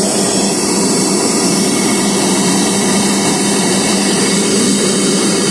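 1984 Kirby Heritage 2 upright vacuum cleaner running steadily: a loud, even motor whir with a constant low hum.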